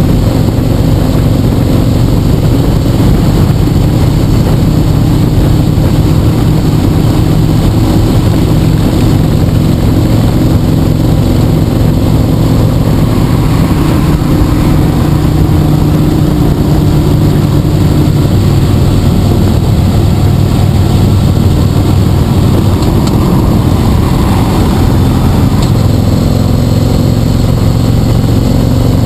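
Motorcycle engine running steadily at highway cruising speed, mixed with heavy wind rush over the microphone.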